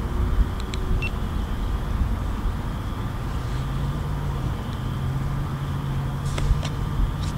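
Steady low outdoor rumble, with a low hum that comes in about three and a half seconds in and a few sharp clicks near the end.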